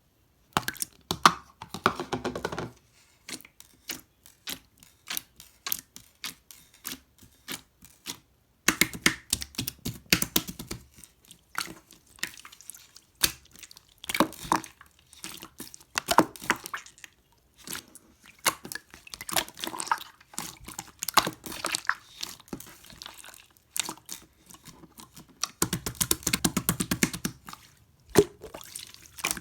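Clear and blue slime being squeezed, stretched and pressed by hand: rapid sticky clicks, pops and crackles, coming in bursts with short pauses.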